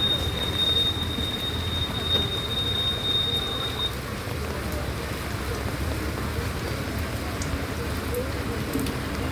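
Steady rain falling, over a low rumble, with a thin, steady high tone that stops about four seconds in.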